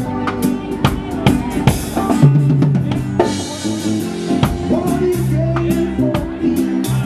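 Band music with a drum kit playing a busy beat of snare and bass drum hits over a held bass line.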